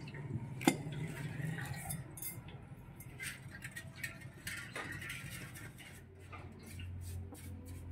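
Metal engine parts being handled by hand: light clinks and knocks as a Honda Dio 110 cc scooter's cylinder barrel and piston are picked up and set down, with one sharp click about a second in.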